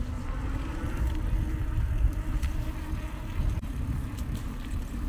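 Steady low rumble of wind and road noise while travelling along a street, with a faint steady hum.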